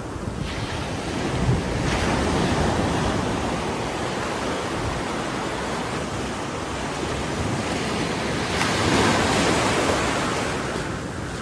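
Ocean surf washing in, a steady rushing of breaking waves that surges louder about two seconds in and again near the end.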